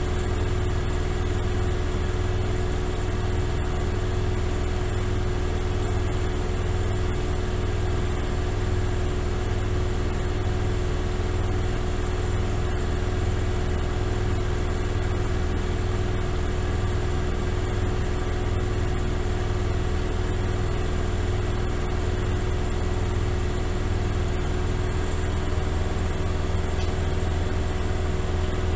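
Miele Softtronic W3923 front-loading washing machine in its spin cycle, turning at a steady high speed: a constant low hum with a steady whine above it.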